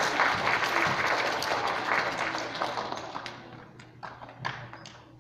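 Audience applauding. The clapping dies away after about three seconds, leaving a few last scattered claps.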